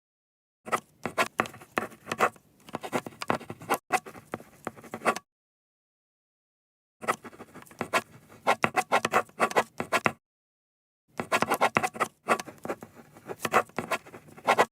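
Writing on paper: a pen or pencil tip scratching out quick strokes in three runs of a few seconds each, with brief silent pauses between them.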